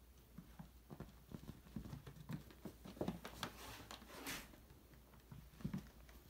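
Young polydactyl kittens' paws scampering and thudding on a hardwood floor as they play: an irregular run of soft knocks and patters, busiest in the middle, with a brief rustle about four seconds in.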